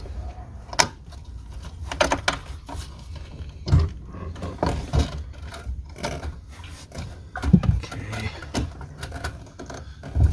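Irregular clicks, knocks and light thumps of fuel pump assembly parts being handled and moved about.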